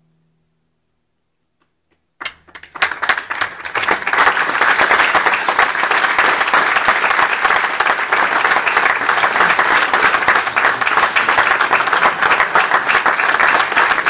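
The last notes of a nylon-string classical guitar fade out, and after about two seconds of silence an audience starts applauding, filling out within a couple of seconds into steady, loud clapping.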